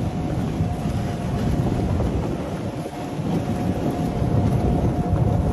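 Wind buffeting the microphone of a moving open golf cart, giving a steady low rumble, with a faint steady whine running underneath.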